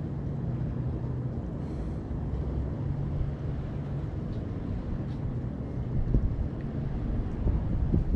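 Wind buffeting the microphone: a steady low rumble, with a couple of dull bumps near the end.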